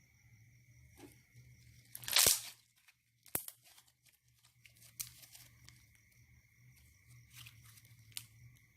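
A short, loud tearing sound about two seconds in, followed by a sharp click, then scattered small ticks and crackles over a low steady hum.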